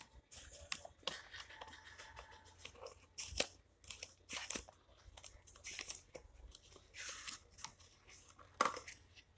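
Faint rustling and scattered short clicks of a book's paper pages being handled and turned.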